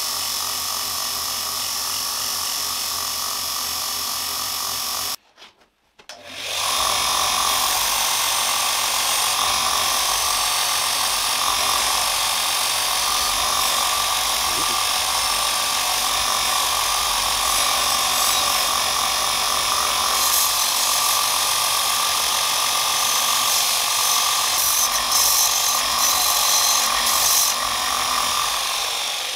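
A small homemade belt grinder running steadily for a few seconds. After a brief silent cut, a piece of steel is ground against the abrasive belt over the contact wheel: a loud, steady grinding hiss that flickers toward the end and then fades away.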